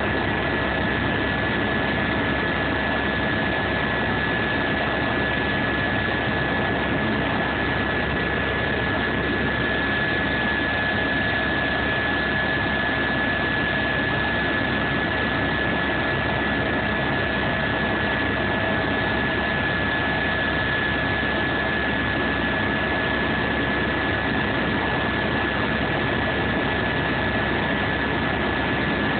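Steady engine drone and rushing air heard from inside an aircraft cabin in flight: a constant wash of noise with a steady high whine and a fainter, lower hum.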